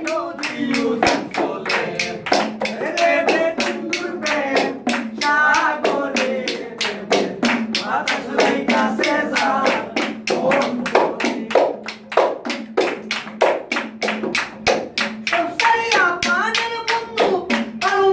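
Several men's voices singing a song together, with steady hand-clapping and a small hand drum beaten in time, about three strokes a second.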